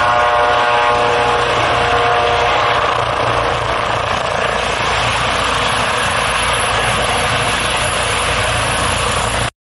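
Eurocopter EC155 (Airbus H155) helicopter hovering low: loud, steady rotor and turbine noise, with a high whine over it during the first few seconds. The sound cuts off suddenly near the end.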